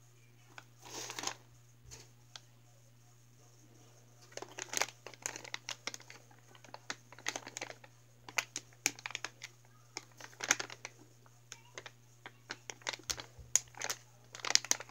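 Clear plastic squishy packaging bag crinkling in the hands, with a brief rustle about a second in and then irregular sharp crackles from about four seconds on.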